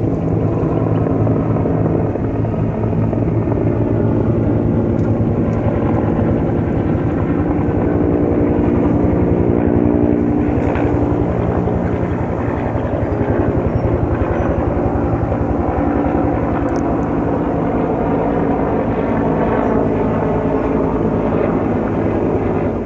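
Helicopter in flight nearby: a steady drone of engine and rotor, with a fast rotor pulse underneath.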